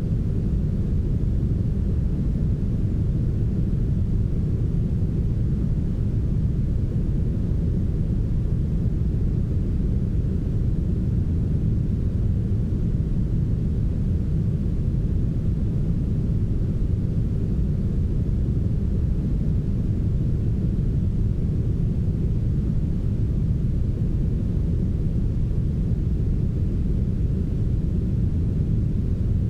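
Steady, smooth brown noise: an even, deep rush with most of its weight in the bass and little treble, unchanging throughout.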